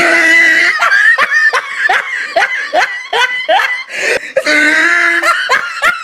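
A person laughing hard: a quick run of short "ha" bursts, about three a second, with longer held notes at the start and again about five seconds in.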